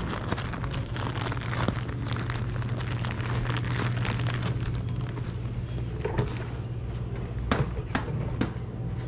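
Plastic zip-top bags crinkling as they are handled, over a steady low hum. A few sharp clicks come near the end.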